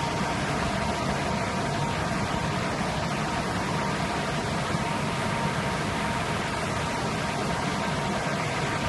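Steady hiss and running noise of a pet wet-food steam tunnel in operation, with a faint steady whine over it.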